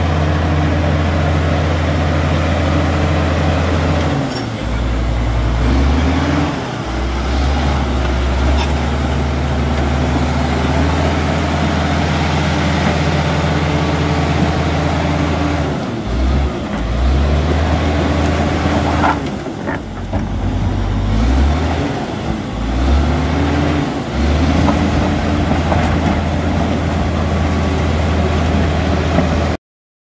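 Komatsu D85ESS-2 bulldozer's diesel engine running loudly, its note dropping and rising several times as the throttle changes, more often in the second half.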